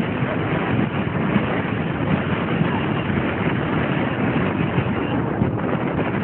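Wind buffeting the microphone over the steady noise of a moving vehicle on the road.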